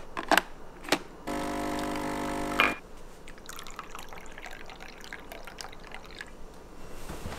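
A Nescafé Dolce Gusto capsule machine: a few sharp clicks as the capsule holder goes in, then the machine's pump buzzing steadily for about a second and a half, cut off with a click. After that, milk trickling faintly from a plastic bottle into a cup of coffee.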